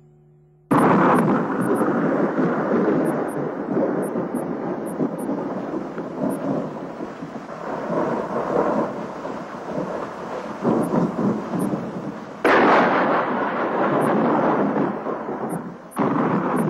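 Loud, rough rushing roar like a storm, with no pitched tones in it. It cuts in suddenly about a second in and jumps abruptly louder twice near the end.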